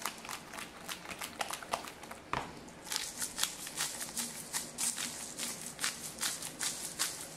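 A hand-twisted pepper mill grinding over a bowl of diced raw pork: a quick run of dry clicks, about four or five a second, that thickens about three seconds in.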